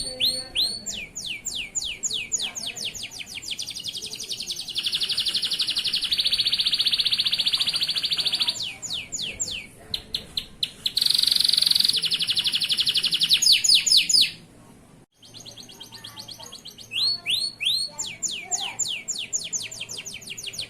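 Male canary singing a long, energetic song of rapid repeated downward-sweeping whistled notes and fast buzzy trills, with a brief pause about three-quarters of the way through before the song starts again.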